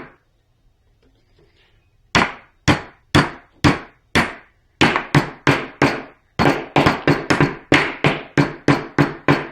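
Hammer tapping wooden beehive frame parts together on an assembly jig, seating the glued bottom bars. The sharp strikes start about two seconds in and come about two a second in short runs, then about four a second near the end.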